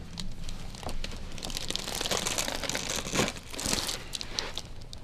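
Crinkling and rustling as a patient's body and clothing shift against a chiropractic treatment table, densest in the middle, with scattered small clicks.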